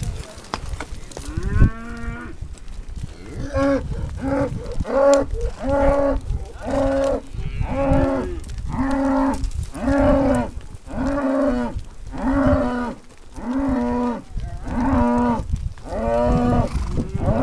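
A longhorn cow bawling over and over in a steady series of short calls at one pitch, about one every three-quarters of a second. The first call rises into the series about two seconds in. A low rumble runs underneath.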